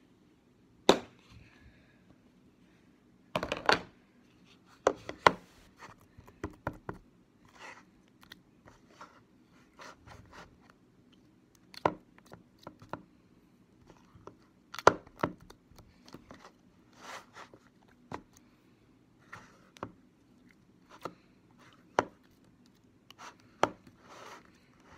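Blue glitter slime being squished, poked and pulled by fingers in a plastic tub, giving irregular sharp clicks and short squelchy pops. There are a few every couple of seconds, with the loudest cluster about three to five seconds in.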